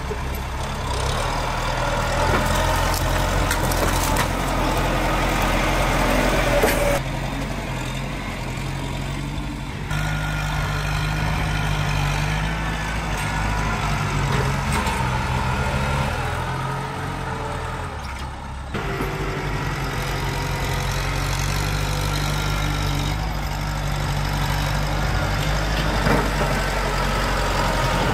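Kubota tractor's diesel engine running steadily under load as its front dozer blade pushes a tree stump and scrapes soil. The sound changes abruptly a few times.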